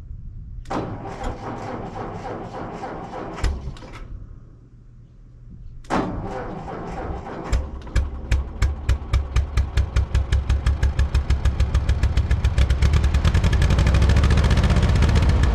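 1949 Ford 8N tractor's four-cylinder flathead engine being started: a short burst of cranking, a pause, then it is cranked again about six seconds in and catches. The firing pulses quicken until it runs steadily.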